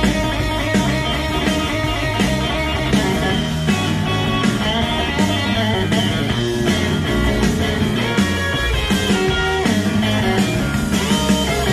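Guitar-led rock music played through a pair of TAD CE1TX stand-mount speakers, with a steady beat.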